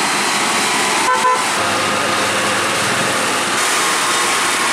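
Loaded UD Trucks Quester diesel truck climbing a steep grade under load and passing close by: steady engine and tyre noise, with a short horn toot about a second in.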